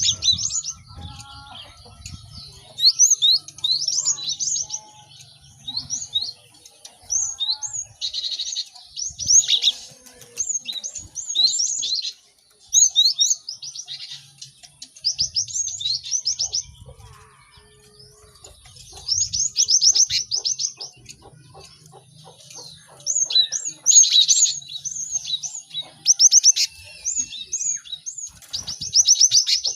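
Several cinereous tits (gelatik batu) calling and singing together: bouts of rapid, high, sharply falling chirps a second or two long, with short pauses between them.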